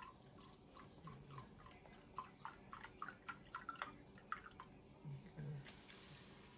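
Seafood stock pouring from a carton into a measuring cup and into a pot of creamy broth, heard as a faint run of small drips and splashes, most frequent about two to four seconds in.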